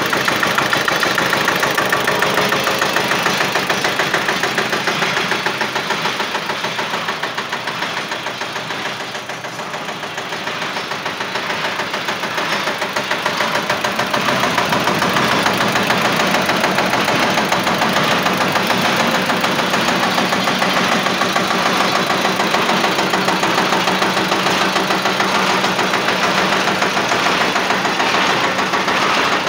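Diesel engine of a borewell drilling machine running steadily with a rapid, even chug, turning the V-belt drive to its pulleys and pump. It is a little quieter for a few seconds near the middle.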